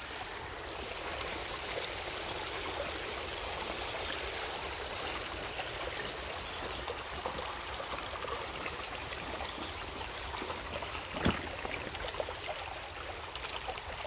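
Shallow creek running steadily over stones and gravel, a constant babble of water, with a single knock about eleven seconds in.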